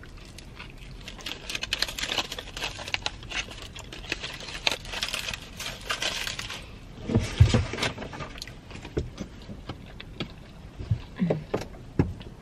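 Close-up eating sounds: chewing a mouthful of burrito while its aluminium foil wrapper crinkles in the hands, with many small crinkles and clicks. A loud low thump about seven seconds in.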